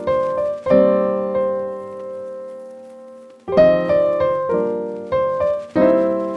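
Background music played on a keyboard. Chords are struck in quick succession, and one chord, struck about a second in, is left to ring and fade for nearly three seconds before the quick chords return.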